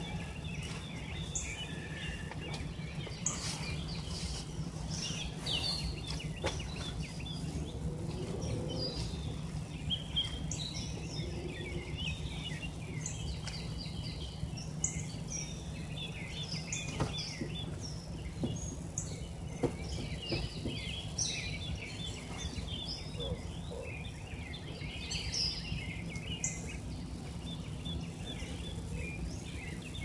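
Many birds chirping, short high calls one after another throughout, over a steady low rumble.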